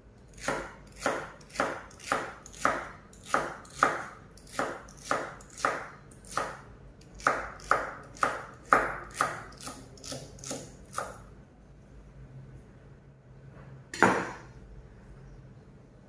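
Kitchen knife chopping a light-green vegetable on a wooden cutting board: about twenty even strokes, roughly two a second, stopping about 11 seconds in. One sharp, louder knock follows about three seconds later.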